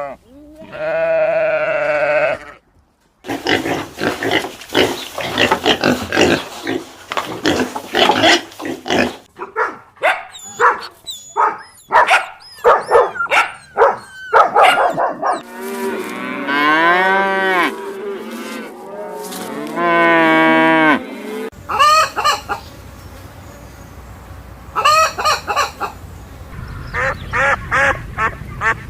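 A series of farm animal calls, one recording after another: a bleat at the start, then a long stretch of goose-like honking and calls from other livestock and fowl, changing abruptly between recordings.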